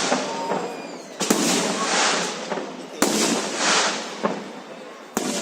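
Fireworks display: aerial shells bursting with sharp bangs about a second in, again about three seconds in and once more near the end. Each bang is followed by a long crackling tail that fades out.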